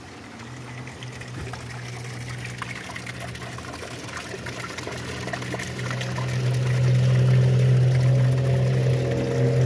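Rain falling and water trickling and dripping, with fine crackle. A steady low hum builds up from about two-thirds of the way in and becomes the loudest sound.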